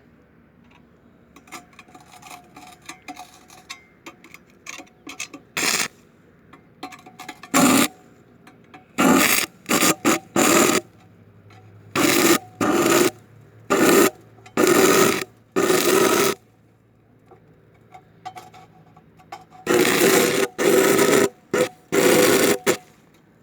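Stick welding powered by three car batteries wired in series: faint scratching as the rod is struck against the steel, then repeated bursts of arc crackle and sizzle as the arc catches and breaks. The bursts last from a fraction of a second to a few seconds, the longest near the end.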